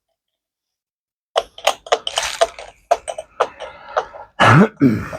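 A quick run of clicks and knocks from hand tools and metal parts being worked, then two louder short sounds with a sliding pitch near the end.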